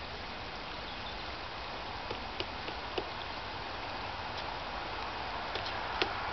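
Pileated woodpecker pecking at wood: single knocks at irregular intervals, not a drumming roll, over a steady background hiss.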